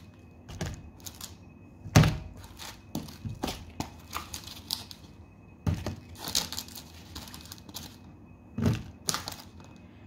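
Potatoes being dropped one by one into a plastic punnet sitting on a weighing scale: a series of knocks and thunks, the loudest about two seconds in, with further strong ones near the middle and near the end and lighter clicks of the plastic tray between.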